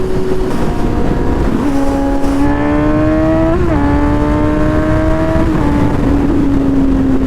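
Suzuki GSX-S750 inline-four engine running under way over steady wind and road rush. Its pitch rises for about a second midway, blips once, then holds and slowly falls.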